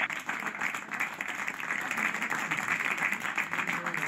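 Steady applause from a group of people clapping.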